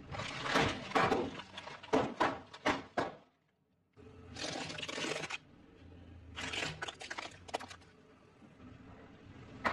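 Plastic pouches and hollow plastic toys cracking and crunching as a car tyre rolls over them and crushes them. A quick run of sharp cracks comes first, a dead break follows, then a burst of rushing crackle and another run of cracks.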